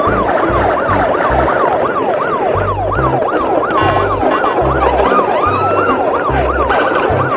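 Electronic siren yelping, its pitch sweeping up and down about three times a second without a break, over a music track with a stepping bass line.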